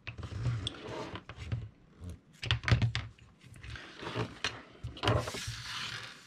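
Plastic parts of an opened hot glue gun being handled on a cutting mat: an irregular run of clicks and knocks as the housing half and the gun are picked up and set down, with a longer scraping rustle about five seconds in.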